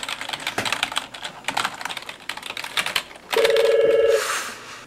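Fast typing on a computer keyboard, a rapid patter of key clicks for about three seconds. Then a desk telephone rings once, a loud electronic buzzing tone lasting just under a second.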